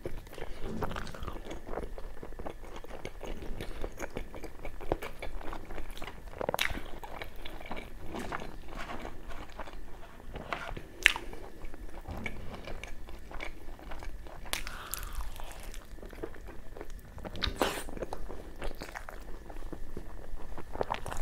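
Close-miked chewing and wet mouth smacks of a man eating puri dipped in mutton curry, a steady run of small clicks; a sharp click about eleven seconds in is the loudest sound.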